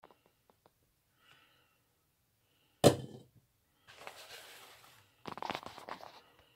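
A glass saucepan lid with a steel knob knocks once with a sharp clack about three seconds in, ringing briefly. Then a paper towel crinkles and rustles in two spells as it is pulled off the pot of freshly cooked rice.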